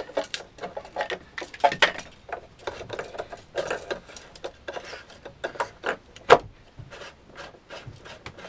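Hands fitting and screwing a plastic blanking plug into an echo-sounder transducer's through-hull housing, with plastic parts and rags rubbing and clicking irregularly. One sharp click a little over six seconds in is the loudest.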